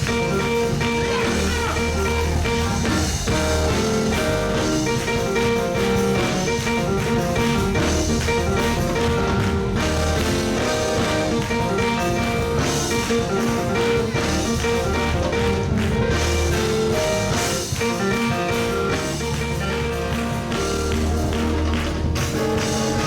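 Live church band playing instrumental worship music on drums, guitar and keyboard.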